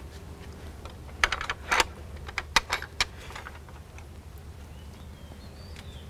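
A quick, irregular run of about ten sharp clicks and light knocks lasting about two seconds, then stopping.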